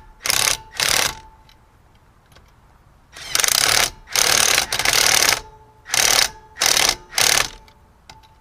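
Power impact wrench run on a nut in short bursts of about half a second: two quick bursts, then three longer ones close together, then three more short ones.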